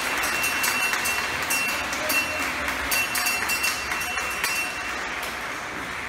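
Dense crowd noise, many voices at once, with scattered sharp clicks and knocks running through it.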